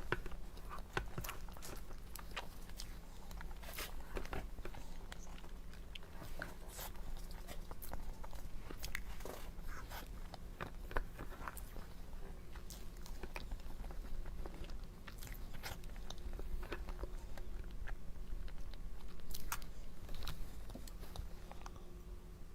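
A person chewing and biting dessert close to the microphone, with many small sharp crunchy clicks and smacks scattered irregularly throughout.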